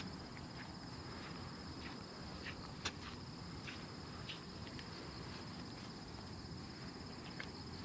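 Insects chirring steadily in a high, even, pulsing band, with one short faint click about three seconds in.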